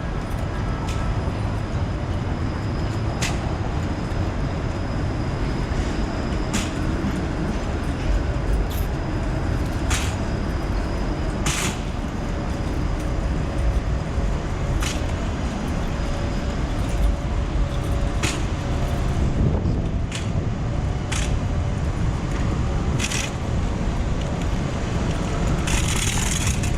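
Downtown street traffic, cars and buses passing, with a steady low wind rumble on the microphone and scattered short clicks.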